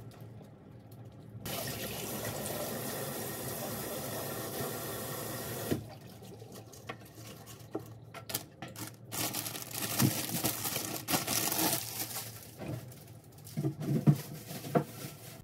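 Kitchen tap running into the sink as lettuce leaves are rinsed, starting about a second and a half in and cut off a few seconds later. After that come irregular handling noises: rustles, knocks and short splashy stretches as the wet leaves are handled, with a few sharper knocks near the end.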